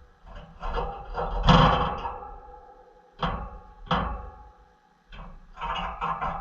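A series of knocks and clatters, each fading out briefly after it, the loudest and deepest about a second and a half in, with two more sharp ones around three and four seconds and a quicker cluster near the end.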